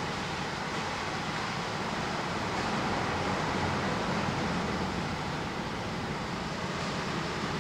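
Steady rushing water noise picked up by a microphone underwater in a dolphin pool, even and unbroken, with no clear whistles or clicks standing out.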